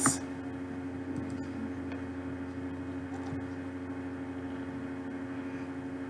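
Steady background hum with a constant low tone and a faint hiss; no distinct events.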